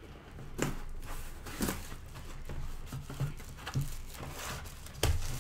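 Packaging being handled and opened: irregular rustling and crinkling with several knocks, the loudest about five seconds in.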